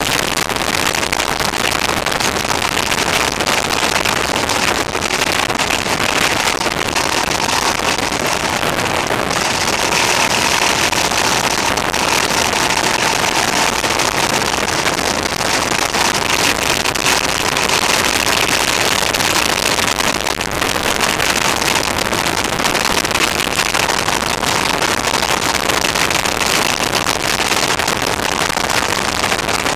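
A motorcycle cruising at steady speed on an open road, heard mostly as steady wind rush on the bike-mounted camera's microphone, with the engine running beneath. The recording is harsh and overdriven because the camera's sound level was set too high.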